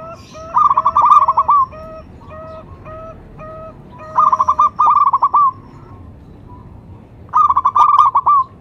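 Zebra dove (perkutut) calling: three loud phrases of its rapid stuttering, trilled coo, with a softer, evenly repeated call between them.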